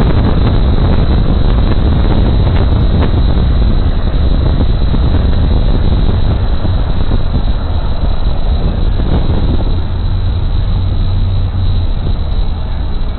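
Loud, steady rush of wind buffeting the microphone inside a moving car with a side window partly lowered, mixed with road noise. It eases slightly over the last few seconds.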